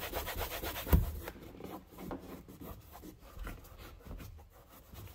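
A microfiber cloth rubbing over a car's interior door panel in quick back-and-forth wiping strokes. A sharp knock comes about a second in, and the strokes are softer and more spaced out after it.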